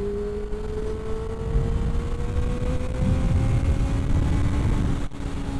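Honda CBR650F's inline-four engine pulling under steady acceleration, its note climbing slowly and evenly as the revs rise, over a low rumble of wind and road noise.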